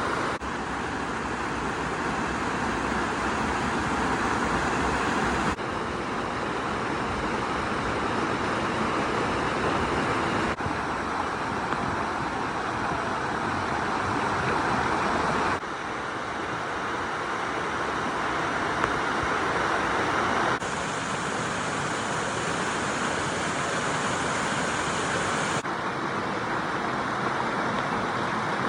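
Mountain stream water rushing and splashing over rocks in a steady, dense wash of noise. The level and tone shift slightly and abruptly about every five seconds.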